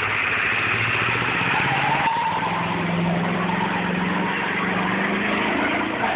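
Ford F-250 pickup doing a burnout: the engine is held at high revs while the rear tyres spin on the pavement, giving a loud, steady rush of tyre noise over the engine. The engine note steps up about two seconds in and holds there.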